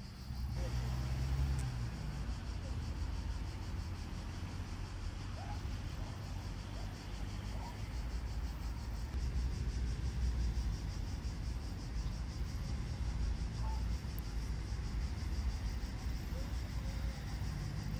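Outdoor ambience: a steady low rumble with a constant high buzz of insects over it.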